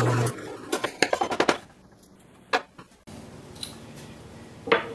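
A drill press motor hums steadily, then stops abruptly a moment in. A quick run of small clicks and knocks follows, then a single knock, and another single knock near the end.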